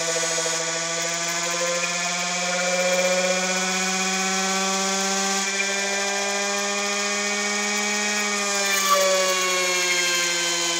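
Home-built air-core motor generator running with a steady, many-toned electrical hum. Its pitch slowly rises, then slides back down around nine seconds in.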